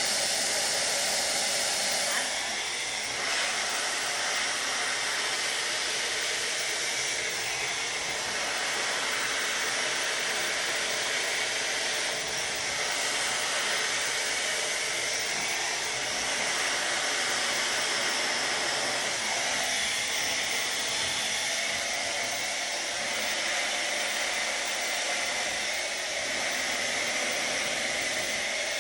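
Hand-held hair dryer blowing steadily while hair is dried with a brush, a constant rushing hiss of air that shifts only slightly as the dryer moves.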